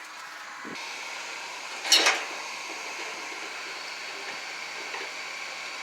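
Forge running with a steady rush of blown air, which starts up about a second in while the stock heats to forging temperature. A brief, loud sharp noise sounds about two seconds in.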